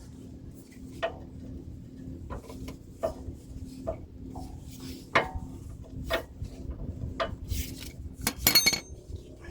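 Metal hand tools clinking and knocking on the front differential's bolts and housing, scattered single knocks, then a quick run of ringing metallic clicks near the end, over a faint steady hum.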